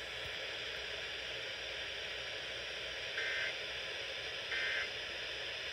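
Weather radio receiver hissing with static, and about three seconds in two short, shrill two-tone data bursts a little over a second apart: the digital end-of-message code that closes an emergency alert broadcast.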